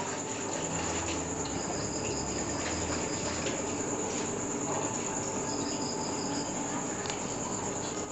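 Night chorus of crickets: a steady, high-pitched trill, joined several times by a slightly lower insect call that lasts a second or so.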